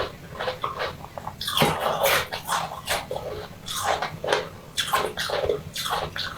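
Close-miked eating sounds: a person chewing and smacking food in irregular wet, crunchy bursts.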